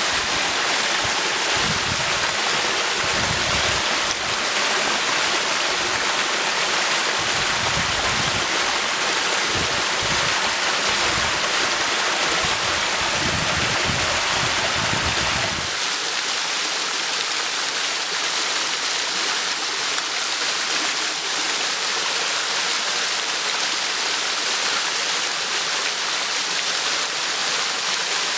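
Rushing water of small waterfalls on a forest creek: a steady splashing hiss. About halfway through, the low rumble drops away and the rest is an even, lighter hiss of falling water.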